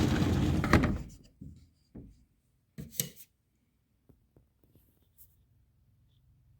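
Rustling handling noise that stops about a second in, then a few scattered knocks and clicks, the sharpest about three seconds in, then quiet room tone.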